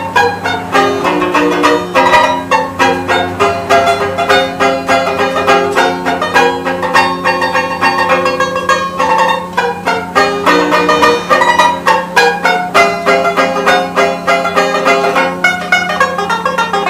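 Banjo playing a tune: a quick, unbroken stream of plucked notes.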